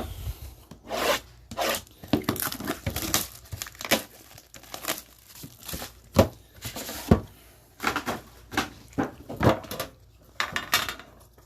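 Plastic shrink wrap being torn and crinkled off a sealed box of trading cards as it is opened, with irregular crackling throughout and two sharp knocks about six and seven seconds in.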